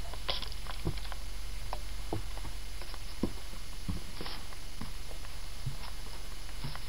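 Footsteps on rock and grit: scattered irregular scuffs and clicks, a few louder ones about a quarter second in, about four seconds in and near the end, over a steady low hum.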